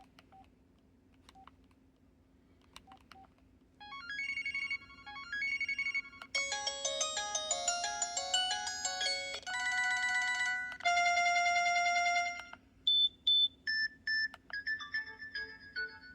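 Preloaded ringtones of an LG LX160 cell phone playing through its small speaker. After a few faint clicks, short electronic melodies, held chords and beeps follow one another from about four seconds in, changing every second or two.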